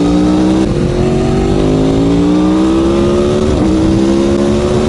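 Aprilia Tuono V4 1100 Factory's V4 engine, fitted with an Arrow exhaust, pulling hard under acceleration. The pitch climbs steadily and breaks off briefly at upshifts, the clearest drop about three and a half seconds in.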